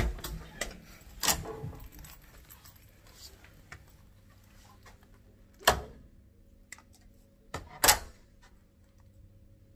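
Scattered sharp clicks and knocks of a key and a door being handled, with the two loudest knocks near the middle and near the end.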